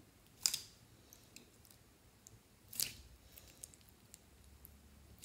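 Hands pressing and squeezing clear slime full of small gel beads: two short wet squishes, about half a second in and near three seconds in, with faint little pops and clicks between them.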